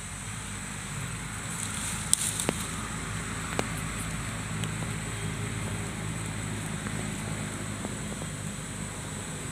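Dry bamboo leaf litter crackling and snapping as wild mushrooms are pulled up and handled, with a few sharp snaps about two seconds in. Under it runs a steady low hum and a thin high whine.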